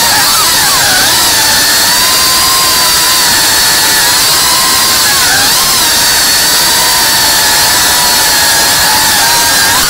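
FPV quadcopter's brushless motors and propellers whining, heard from on board. The pitch holds steady with brief dips and swoops as the throttle changes: near the start, about five seconds in, and near the end.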